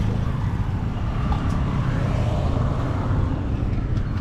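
Steady low rumble of street traffic, with a vehicle engine running nearby.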